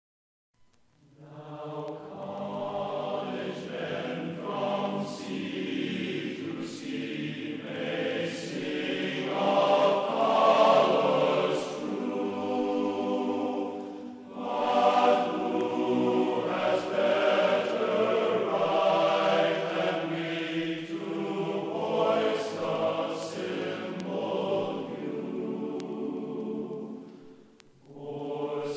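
Background music of a choir singing, starting about a second in after a brief silence.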